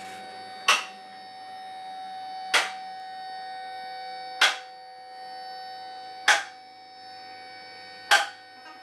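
Background music: sustained electronic tones with a sharp percussive hit about every two seconds, five hits in all.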